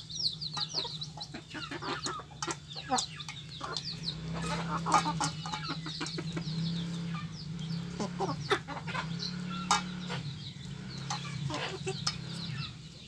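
A flock of village chickens scrambling over feed: hens clucking and chicks peeping in rapid, high, falling chirps, with many short sharp taps of pecking and a steady low hum underneath.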